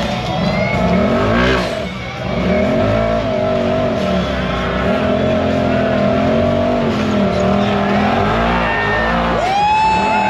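Several off-road vehicle engines running and revving at once, their pitches rising and falling over one another. Near the end a single high tone swoops up sharply and holds.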